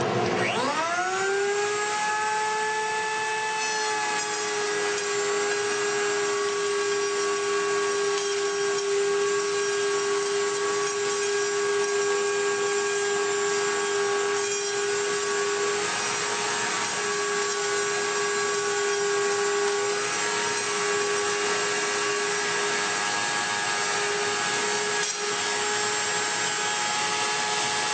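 Router mounted in a benchtop router table spinning up with a fast-rising whine, then running at a steady high pitch. A board is fed along the fence through the bit in a jointing cut on its edge.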